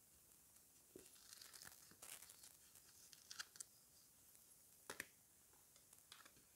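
Soft crackling and tearing of a Rewe Disney sticker packet being torn open by hand, with the sharpest tears about three and a half and five seconds in.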